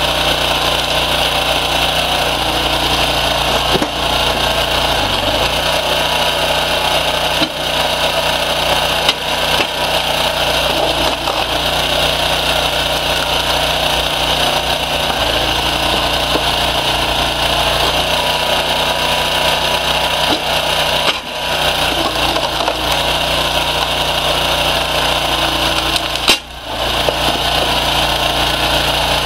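Homemade hydraulic log splitter's power unit running steadily with a constant high whine and low hum, its note shifting several times as the ram loads and unloads, with a few sharp cracks and knocks as a birch log is forced through a six-way star wedge and splits.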